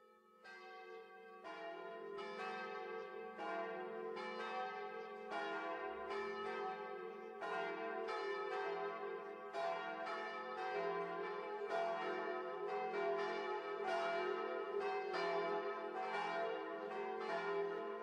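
Church bells pealing, one strike after another, their overlapping ringing merging into a sustained hum. The sound fades in from silence over the first couple of seconds.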